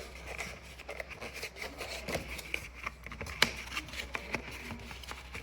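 A phone's cardboard retail box being handled and opened by hand, with light rubbing and scraping and scattered small clicks.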